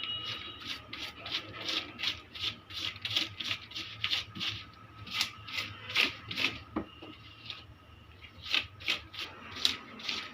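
A brush scrubbing dust out of an opened keyboard's insides: quick scratchy bristle strokes, about two or three a second, with a short lull about seven seconds in.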